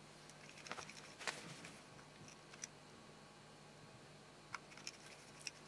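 Faint, scattered clicks and light taps from small hand tools and a phone's plastic parts being handled while its small screws are driven back in. The clearest click comes about a second in.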